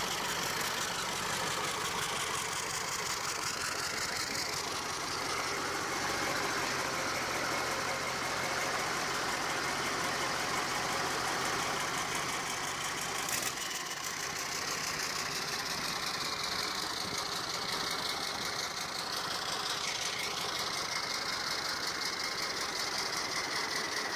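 Mercedes-Benz OM 442 A V8 turbo-diesel engine running steadily, freshly repaired. A single sharp click comes about halfway through.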